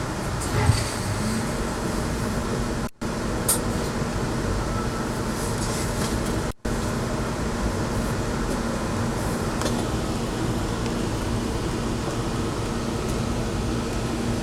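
Steady rumble of a passenger train in motion, heard from inside the car, with a constant low hum that sets in about a second in. The sound cuts out for an instant twice.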